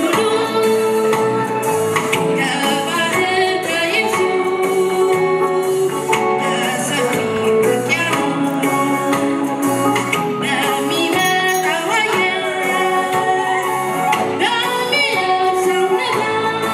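Tigrinya peace song performed live: a woman singing over a band of drums, keyboard and bass guitar, with a steady beat.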